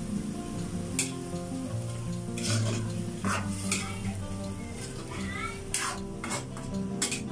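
A ladle stirring chicken feet and pineapple chunks through simmering sauce in a metal pan, scraping and clinking against the pan several times over a sizzle. Background music plays underneath.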